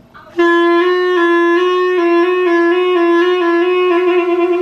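Clarinet sounding one long held note, starting about half a second in, with slight wavers in pitch, as a player practises.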